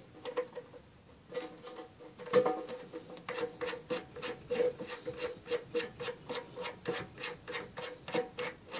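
Plastic lock nut being spun by hand onto the threaded shank of a new toilet fill valve, the plastic threads rubbing and clicking in a quick even rhythm of about three ticks a second, starting about a second and a half in.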